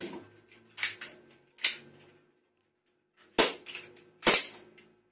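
Two sharp bangs like pistol shots, just under a second apart, about three and a half seconds in, from a prop handgun being fired. Before them come a few softer clicks and rustles.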